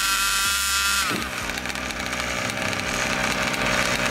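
Small two-stroke gas engine of a 1/5-scale RC car held at high revs, a steady high-pitched whine that drops in pitch about a second in, then runs rougher at lower revs.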